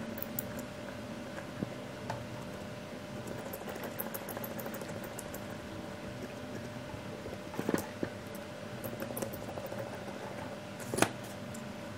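Precision screwdriver turning small machine screws into a 3D-printed plastic gear housing: faint scraping and light ticks over a steady hum, with a few sharp knocks about two-thirds of the way through and a single louder knock near the end.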